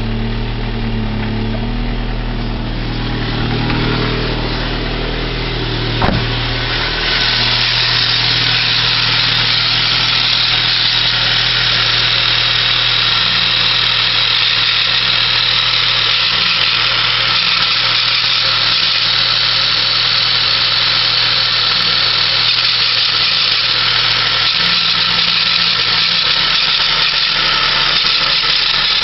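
1996 Saab 900S engine idling, with a strange noise from the belt and pulley area that the owner cannot explain. There is a sharp click about six seconds in; from about seven seconds on, a steady high-pitched hiss grows louder and holds.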